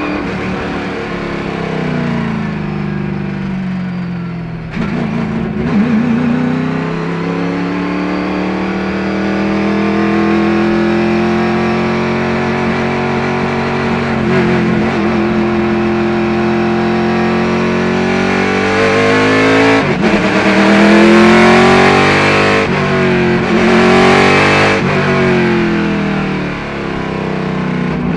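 Race-car V8 engine of a 1976 Chevy IMSA Monza heard from inside the cockpit at racing speed. The revs fall over the first few seconds and break briefly about five seconds in, then climb slowly through a long pull. In the last third the engine note rises and falls quickly several times and is at its loudest, before another short dip near the end.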